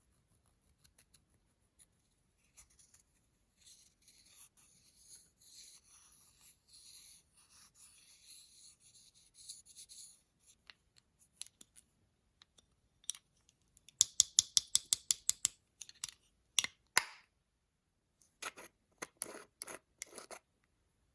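Close-up handling of makeup: several seconds of soft, fine scratching, then runs of quick sharp clicks, the fastest and loudest about two-thirds of the way in.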